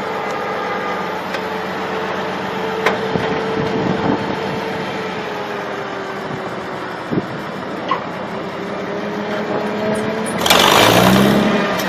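Tractor engine running steadily under way, with a few knocks and rattles. About ten and a half seconds in, a louder rush of noise comes with the engine note rising and then falling.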